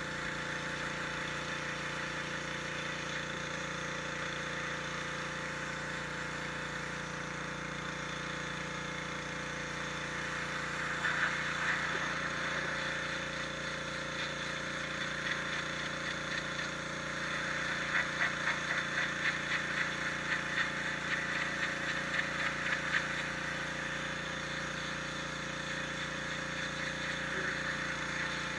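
High-pressure washer running: a steady pump hum under the hiss of its water jet on bluestone. About halfway through, the hiss swells louder and flutters rapidly for several seconds before settling back.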